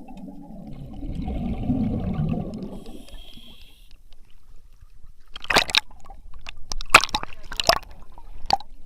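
Water gurgling and sloshing, then from about halfway through a quick run of about seven sharp knocks.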